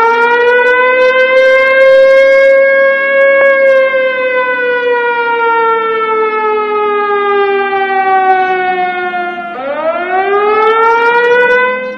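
Warning siren wailing, one long wail. It rises, holds, and slowly sinks in pitch, then climbs again sharply near the end.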